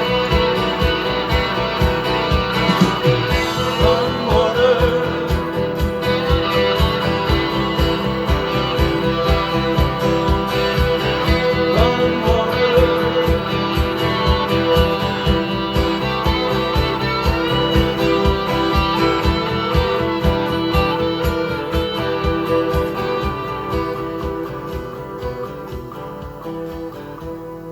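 Country-style music led by guitar, with a steady beat, fading out over the last few seconds.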